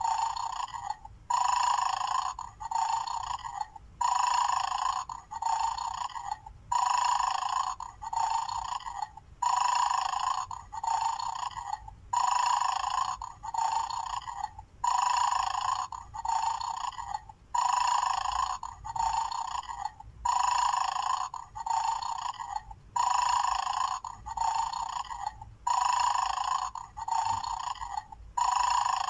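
Battery-powered 'Mad Dog' bulldog toy playing its recorded snoring through its small speaker, the sound of its sleeping mode: a two-part snore, a longer breath then a shorter one, looping about every two and a half seconds.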